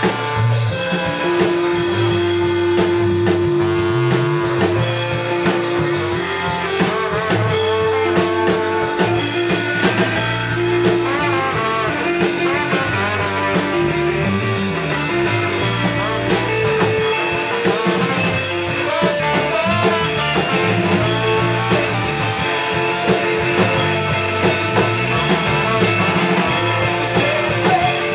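Live ska-punk band playing a song, with electric guitar, bass and drum kit, steady and loud throughout.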